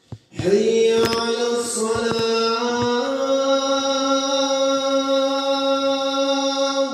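A man chanting the adhan, the Islamic call to prayer. After a short pause he sets in with one long held note that steps up slightly in pitch about three seconds in.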